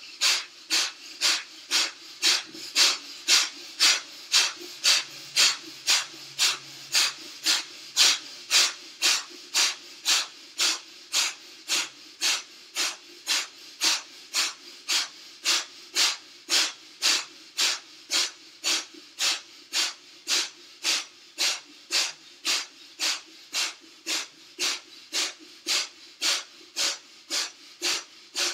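A man doing breath of fire (kapalabhati): sharp, forceful exhalations driven by the abdominal muscles, each a short hiss of air, in a steady rhythm of about two a second, with the in-breaths passive and barely heard.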